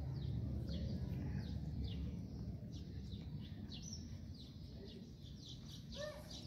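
Small birds chirping over and over in short, quick, downward-sliding chirps, over a steady low outdoor rumble.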